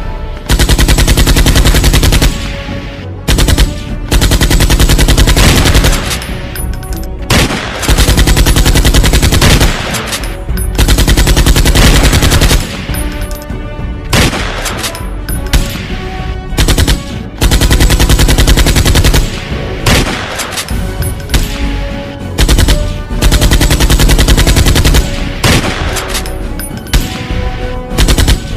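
Repeated bursts of rapid automatic gunfire, each lasting one to two seconds, with short breaks between them.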